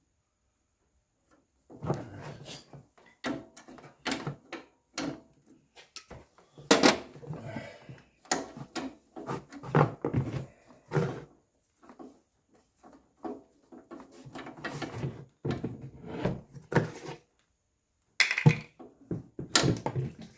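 Irregular knocks, clicks and clattering of objects being handled, after a silent first second and a half.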